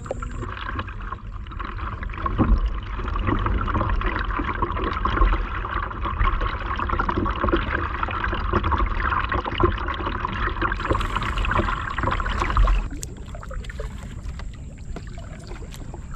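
Sit-on-top kayak being paddled with a double-bladed paddle: steady splashing and trickling of water off the blades and along the hull, over a low rumble. The sound drops off suddenly about thirteen seconds in, leaving quieter lapping water.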